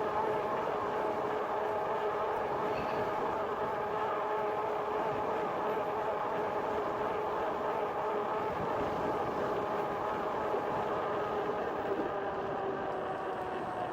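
Electric bike's geared hub motor whining steadily under power, over a rush of wind and tyre noise; the whine sinks slightly in pitch near the end as the bike slows.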